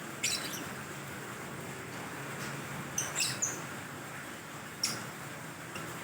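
Aviary birds chirping: a handful of short, high-pitched chirps, one just after the start, a quick run of three or four about halfway through, and another near the end, over a faint steady background noise.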